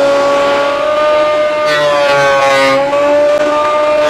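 JET JPT-8B planer-thicknesser running with a steady high whine from its motor and two-knife cutter block. About a second and a half in, a board is fed across the cutter block for about a second, adding the rough noise of the knives cutting wood while the whine dips slightly in pitch under the load. A second pass begins right at the end.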